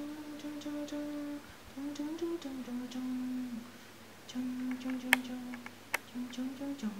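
A man humming a slow lullaby in long held notes with short breaks between them. Two sharp clicks, about a second apart, fall in the second half.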